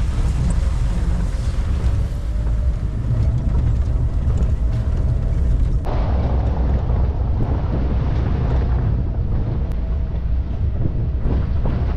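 Safari vehicle driving, its engine and tyre rumble under heavy wind buffeting on the microphone.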